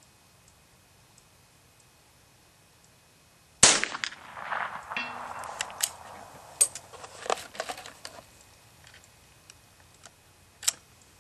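A single shot from a Davey Crickett single-shot bolt-action .22 youth rifle, one sharp crack about three and a half seconds in with a short ring after it. It is followed by a string of small metallic clicks and knocks as the rifle's bolt is worked and it is reloaded.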